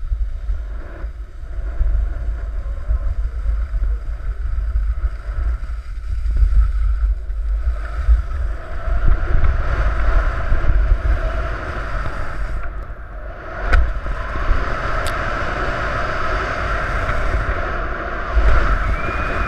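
Wind buffeting an action camera's microphone with a steady heavy rumble, and the hiss of skis sliding over packed snow that grows louder from about eight seconds in as speed builds. A single sharp knock comes a little before the end.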